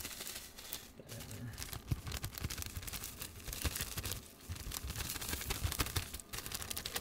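Small clear plastic bag crinkling and crackling in the hands as dried herbs are shaken out of it, a dense, irregular rustle.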